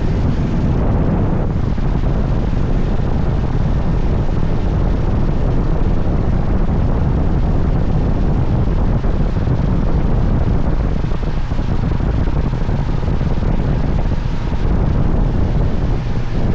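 Wind buffeting the microphone on a moving boat, with the boat's motor running steadily underneath.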